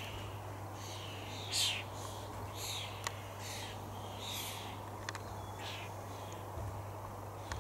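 Birds chirping: a string of short, high calls about once a second, the loudest about one and a half seconds in, over a steady low hum.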